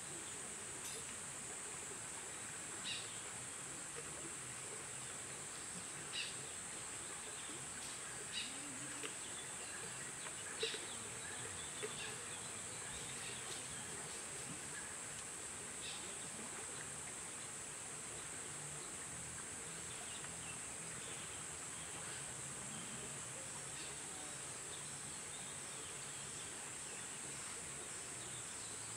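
Outdoor ambience: insects keep up a steady, high-pitched drone, with a few short, sharp chirps in the first half.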